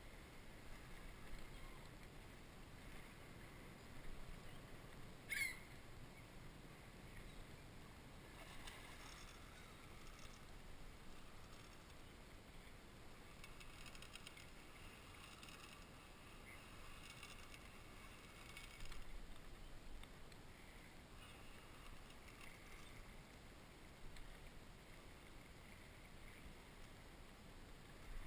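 Near silence: faint background noise, with one short high chirp about five seconds in.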